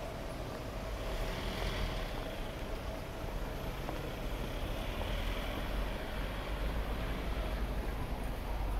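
City street traffic: vehicle engines running and passing, with a minibus passing close near the end.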